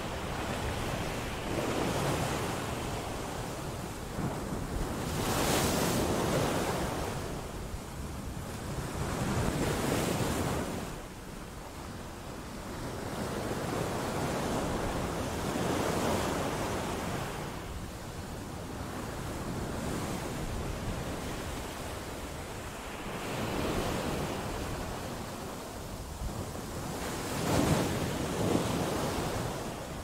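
Sea waves breaking against coastal rocks: a rushing surf that swells and falls back every few seconds.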